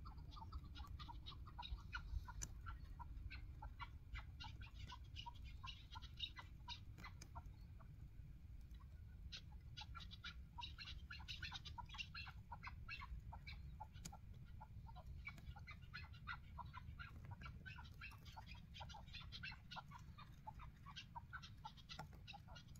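Chukar partridges calling: a continuous stream of rapid, faint clucking notes.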